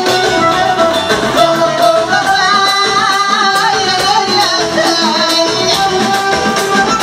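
Live band music with singing: plucked strings over a steady beat, and a winding melody line above them.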